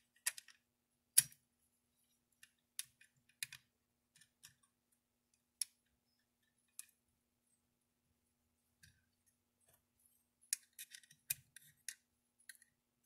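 Scattered small clicks and taps of a Galil ACE rifle's safety lever and receiver parts being worked into place by hand. The sharpest click comes about a second in, and a quicker run of clicks comes near the end.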